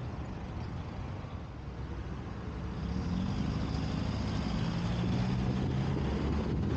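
A car driving in city traffic, with a low rumble of wind buffeting the microphone. About three seconds in, a vehicle engine's hum comes up and holds for a couple of seconds.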